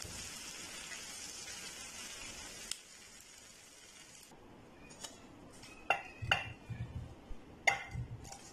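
Mutton liver pieces sizzling in a frying pan for the first few seconds. Then a few sharp clinks and knocks as a utensil scrapes the pieces out of the pan onto a glass platter.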